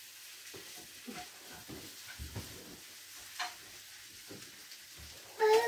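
Rustling and light knocks of cushions and bedding being handled on a fabric sofa. Near the end, a toddler's high, wavering vocalisation breaks in loudly.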